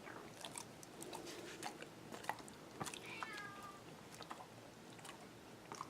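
Dog chewing a treat, a scatter of soft crunching clicks, with a cat meowing once briefly about three seconds in.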